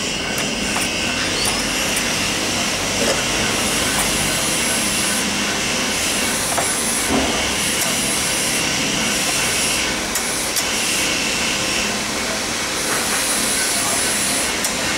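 Steady rushing, hiss-like background noise, like a running fan or machine, with a few faint clicks.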